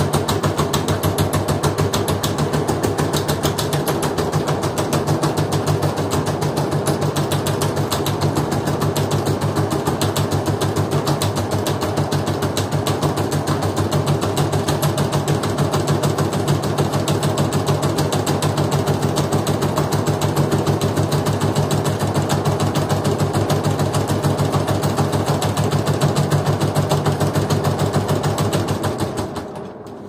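LG DirectDrive 6 kg front-loading washing machine spinning fast near the end of its quick-wash cycle: a steady hum with a fast, even rattle. About a second and a half before the end the spin stops and the drum winds down, the sound fading away.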